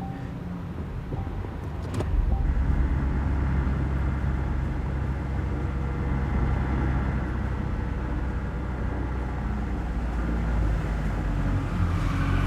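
Car engine and road noise as the car is driven. A sharp click comes about two seconds in, after which the running gets louder and carries on steadily.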